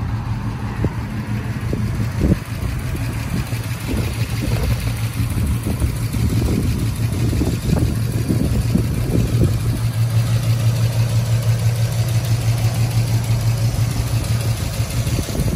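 1953 Oldsmobile 88's Rocket V8 idling steadily, with a low hum and an uneven pulsing. There is a single sharp knock about two seconds in.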